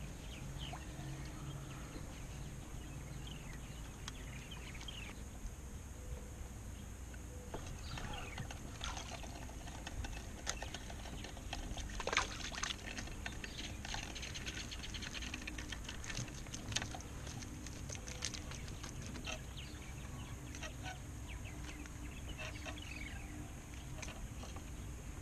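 Quiet waterside ambience of light lapping water, with scattered small clicks and splashes; a sharp splash about halfway through as a small hooked fish thrashes at the surface while it is reeled in.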